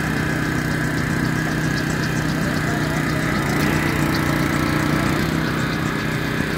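Small petrol engine of a LUKAS hydraulic rescue power unit running steadily, driving the pump for the jaws-of-life tools. Its note changes for a second or two around the middle.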